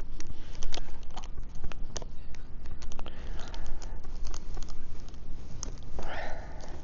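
Irregular small clicks and rattles of a loose chainsaw chain's metal links being handled, with a brief rustle near the end.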